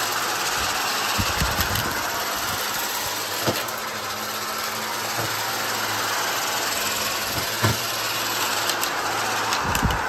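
Upright vacuum cleaner running on carpet, its motor humming steadily under a constant rush of air. Several sharp clicks and cracks come through as debris is sucked up: a few about a second in, one at three and a half seconds, the loudest at about seven and a half seconds, and another near the end.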